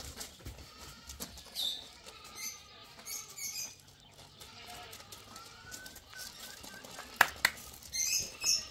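Footsteps and a dog's paws moving on gravel, with faint high chirps and two sharp clicks about seven seconds in.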